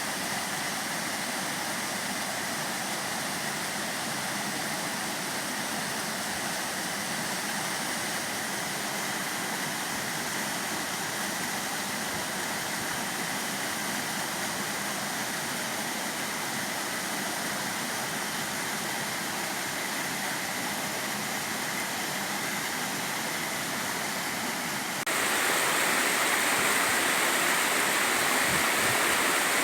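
Mountain stream water rushing steadily over rocks. About 25 seconds in, it abruptly becomes louder and brighter.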